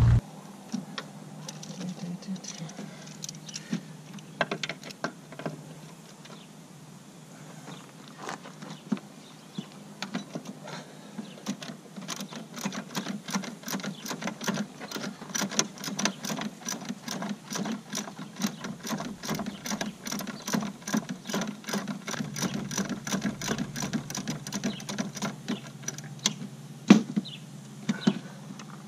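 Craftsman ratchet wrench clicking as it backs off a brake master cylinder mounting bolt: scattered clicks at first, then from about twelve seconds in a steady run of about three to four clicks a second.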